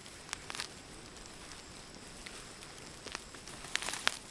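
Faint scratchy rustling of a hand digging through loose garden soil among dry potato vines, with a few small crackles, a couple near the start and several near the end.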